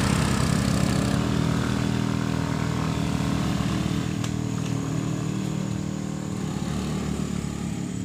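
Motorcycle engine running steadily on a steep dirt track, slowly growing quieter.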